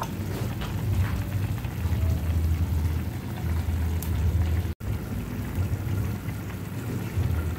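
Gas stove burner running under a pan of simmering vegetable noodle soup: a steady low rumble with a hiss over it. The sound drops out for an instant about five seconds in.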